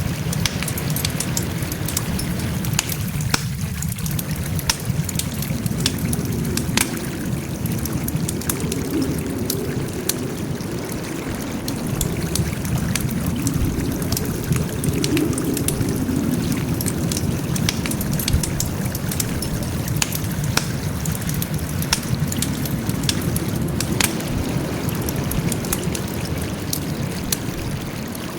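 Wood fire burning: a steady low rumble with frequent sharp, irregular pops and snaps of crackling wood.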